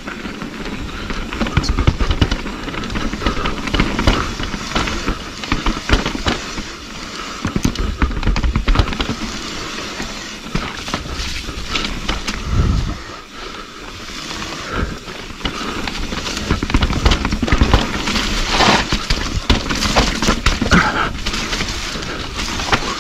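Mountain bike riding fast down a rough dirt trail: tyres crackling over dirt and rocks and the bike rattling, many sharp clicks and knocks over a continuous rushing noise with surges of low rumble.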